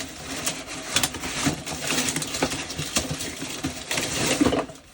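Cardboard and strings of Christmas lights being handled: continuous rustling with many small clicks and clatters, stopping abruptly near the end.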